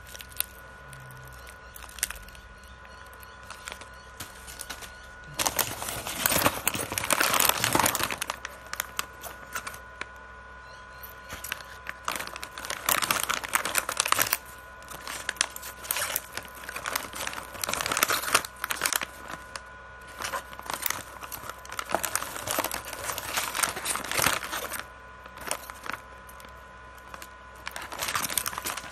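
Plastic snack wrappers crinkling as they are handled and turned over, in several stretches of rustling with short pauses between.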